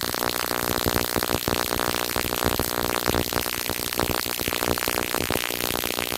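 Background music with a synthesizer sound and a quick, busy pulse.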